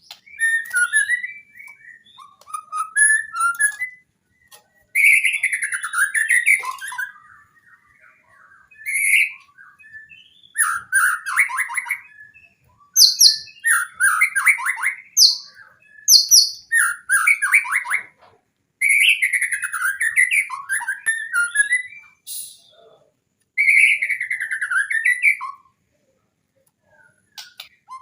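White-rumped shama (murai batu) singing a string of varied phrases packed with mimicked song (isian): rising and falling whistled sweeps, fast trills and high chattering notes, broken by short pauses and a longer pause near the end.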